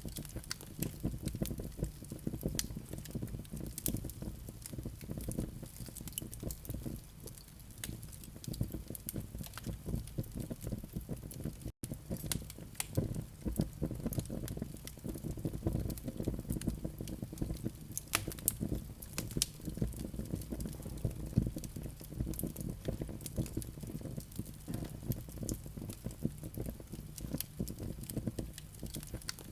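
Wood fire with glowing coals crackling: a dense, irregular run of small pops and snaps over the low rumble of the flames. The sound cuts out for an instant about twelve seconds in.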